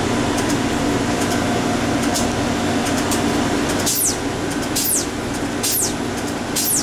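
Steady mechanical hum of a refrigerated Slurpee frozen-drink machine running. From about four seconds in, a high falling chirp repeats roughly once a second.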